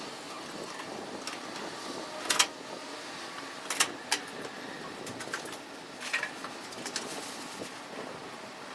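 Scattered sharp clicks and knocks from fitting the ceiling panel of a system air conditioner, over a steady hiss; the loudest come about two and a half and four seconds in.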